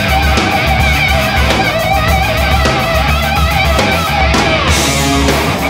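Loud rock music with electric guitar and a steady drum beat.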